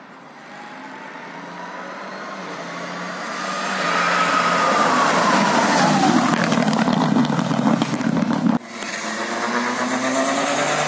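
Rally car approaching at speed on a stage, its engine note climbing and growing louder, then falling in pitch as it passes about four to six seconds in. The sound cuts abruptly about two-thirds of the way through, and another rally car's engine starts building as it approaches.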